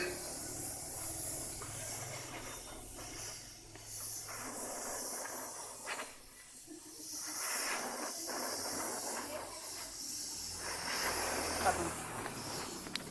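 Steady high hiss of a bandsaw blade being toothed by machine, with a few light clicks and two short dips in level about four and seven seconds in.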